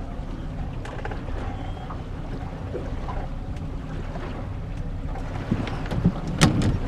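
Small outboard motor on a fishing boat running steadily, with wind and water noise around the hull. A couple of sharp knocks come near the end.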